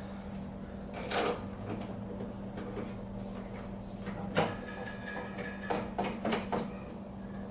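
Handling noise from welding equipment: a few sharp knocks and rattles about a second in and again in the second half, over a steady low hum.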